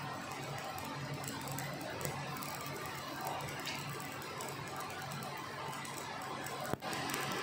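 Stick (shielded metal arc) welding: the electrode's arc crackling and sizzling steadily as a bead is run along steel plate, with a sharp click and a momentary break near the end.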